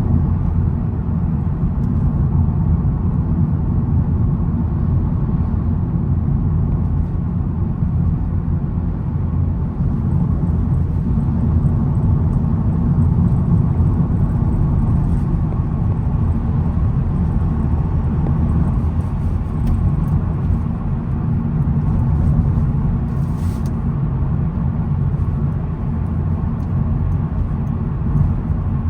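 2022 SEAT Ibiza FR being driven, heard from inside the cabin: a steady engine and road rumble.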